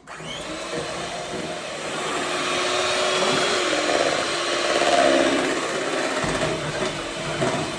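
Electric hand mixer running steadily as it beats cake batter. It switches on abruptly and runs for about eight seconds.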